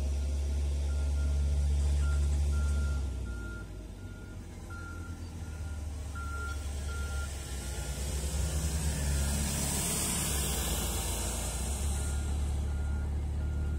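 Forklift reversing alarm beeping at a steady pace of just under two beeps a second, stopping for a few seconds in the middle and starting again, over the low drone of an engine running.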